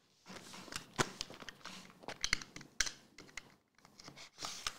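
Foil trading-card packs being handled on a table: irregular crinkles and light clicks, with one sharper click about a second in.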